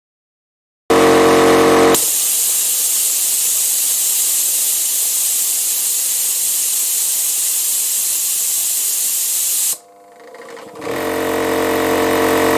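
Air compressor motor running briefly, then stopping as the pressure switch cuts out, followed by a loud steady hiss of air venting through the pressure relief valve, which opens at maximum pressure: the fault being shown. Near the end the hiss stops and the compressor motor starts running again.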